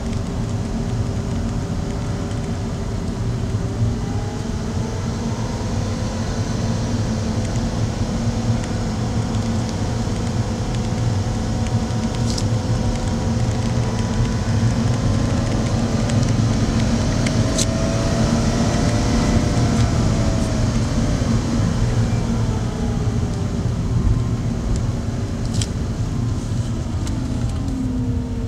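Car running along a winding road, heard from inside the cabin: steady tyre and road noise under an engine note that rises and falls gently a couple of times as the speed changes.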